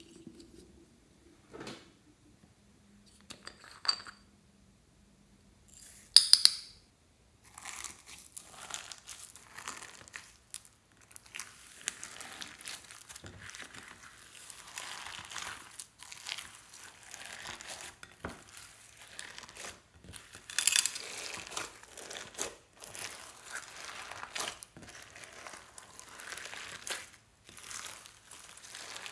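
Slime full of beads, sprinkles and glitter being kneaded and stretched by hand in a glass dish: a continuous sticky crackling with small clicks of beads against the glass, from about seven seconds in. Before that there are only a few scattered taps and one sharp louder crackle.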